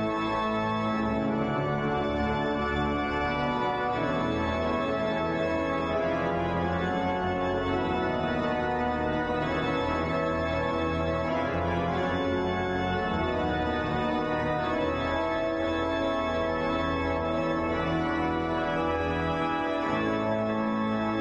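Background organ music playing slow, held chords that change every second or two at an even volume.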